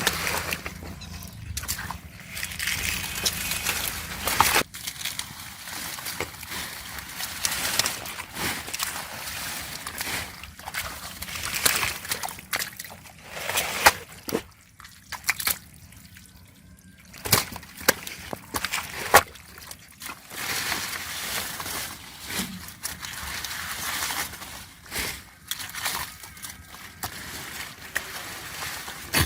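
Water sloshing and splashing in irregular bursts, with sharp clicks and knocks, as someone works by hand in shallow river water.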